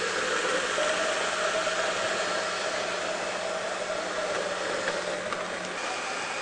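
Countertop blender running steadily, blending a fruit and nut smoothie with ice.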